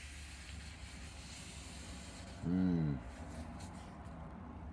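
Steady low hum with faint rubbing, and a brief voiced 'mm' from a person about two and a half seconds in, rising then falling in pitch.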